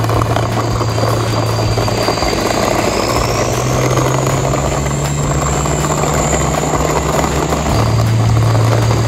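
Truck engine sound effect: an engine running steadily, its pitch rising about three seconds in and falling back near the end.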